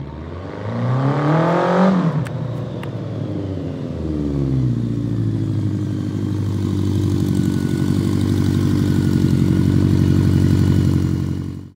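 A custom 1985 BMW K100RT motorcycle's inline-four engine, heard from a distance, revs up with its pitch rising, then drops off about two seconds in and rises again briefly. From about five seconds in it runs steadily and grows louder as the bike rides up close.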